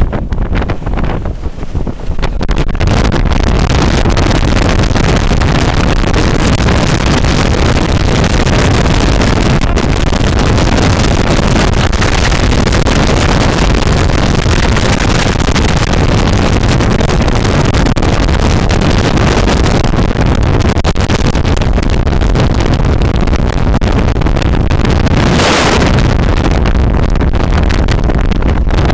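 Very strong wind buffeting and overloading the camera's microphone, a dense, loud rushing noise that drowns out everything else. It gusts unevenly for the first couple of seconds, then settles into a steady, very loud roar.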